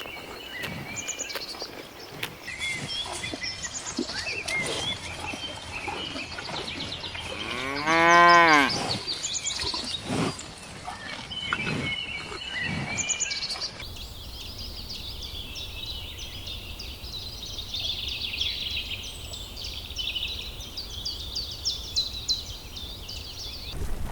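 A cow moos once, a single call of about a second with its pitch rising then falling, about eight seconds in. Birds chirp throughout, with denser birdsong in the second half.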